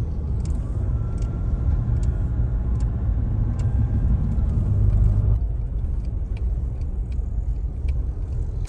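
Steady low rumble of a moving car's road and engine noise, heard inside the cabin, with faint light ticks recurring about every three-quarters of a second.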